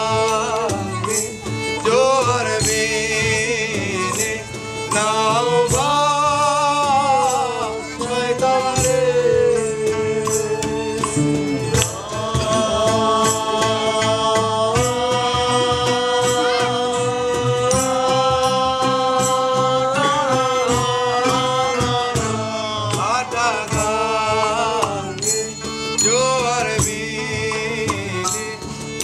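Bangla folk band playing live: violin, melodica and oud carry the tune while men sing, over a steady beat of light percussion.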